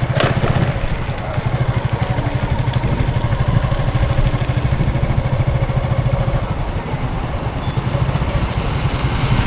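Road traffic with a close vehicle engine running, a steady low rumble throughout. A short sharp click comes just after the start.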